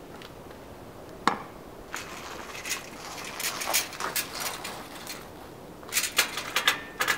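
A sharp knock about a second in, then irregular clicking and light rattling from a vintage Schwinn Collegiate five-speed bicycle as it is wheeled along and stood up, with a dense run of clicks near the end.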